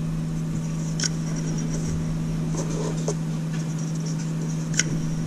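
Gears of an airsoft V2 gearbox (SHS 13:1 set) spun by hand inside the closed shell, running freely with faint whirring and a couple of sharp clicks, a sign that the gears are shimmed right. A steady low hum runs underneath.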